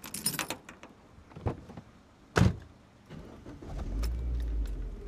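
Keys jangling, then one loud thud like a car door shutting a little over two seconds in, and near the end a car engine starts and runs with a low steady rumble.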